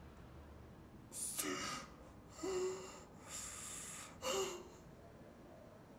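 A woman crying into her hands: four gasping, breathy sobs about a second apart, two of them with a short whimper in the voice.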